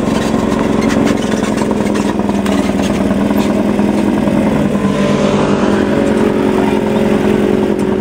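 Off-road race buggy's engine running loud and steady at close range as the car sits in the pit, with a few sharp clicks in the first few seconds.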